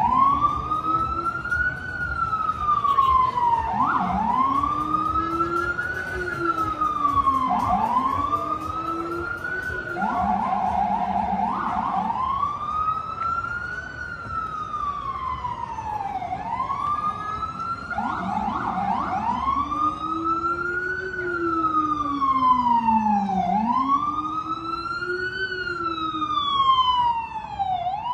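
Emergency vehicle siren on a city street, in a slow wail that rises and falls about every four seconds. It switches briefly to a fast yelp about ten seconds in and again near eighteen seconds, with street traffic underneath.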